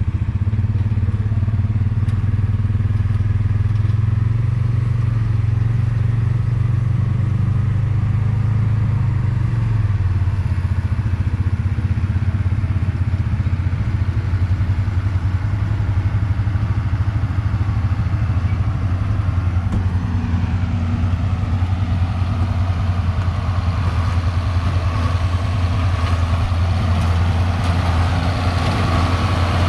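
John Deere 4430 tractor's six-cylinder diesel running steadily under load, pulling a John Deere 328 square baler as it bales hay, with the baler's mechanical clatter over the engine. The engine note dips slightly about ten seconds in.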